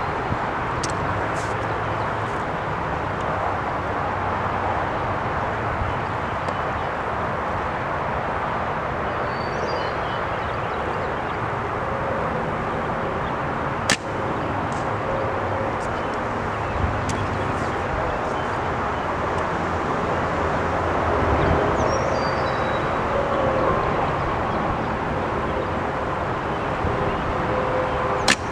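Wind buffeting the camera's microphone: a steady rumbling noise, with a sharp click about halfway through and another near the end.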